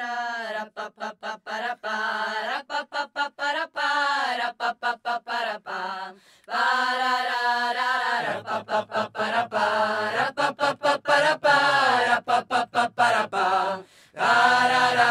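Unaccompanied chant-like singing: held, pitched vocal notes broken by frequent short pauses. A higher voice sings first, and about halfway through a lower voice takes over.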